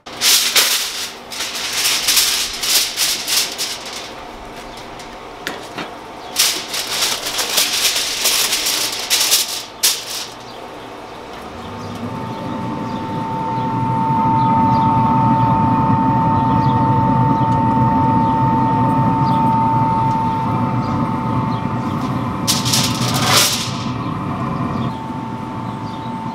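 Two stretches of crackly, rustling handling noise, then, from about halfway through, a Traeger Pro 780 wood-pellet grill humming steadily with a high whine as its fan and auger motor run, loudest in the middle; a brief rustle near the end.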